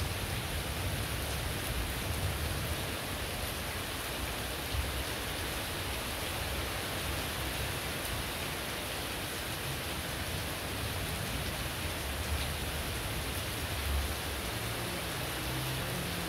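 Heavy rain pouring steadily onto roofs, plants and puddled ground, an even hiss.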